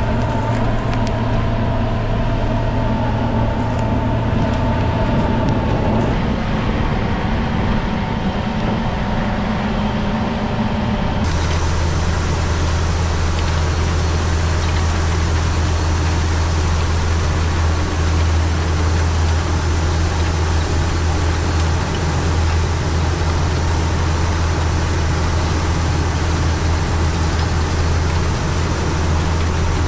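Tractor engine running steadily under load, a continuous low drone. About eleven seconds in, the sound changes abruptly to a deeper, heavier drone.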